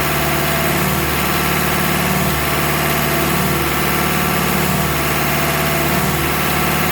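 Olin 575 concrete pump's engine and hydraulics running steadily while the machine generates its lube oil, with a faint pattern repeating about every second and a quarter.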